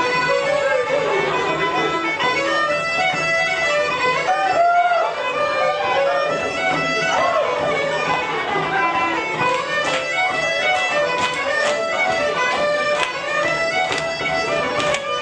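Lively Irish traditional dance tune led by fiddle, with quick running notes; sharp taps join in about ten seconds in.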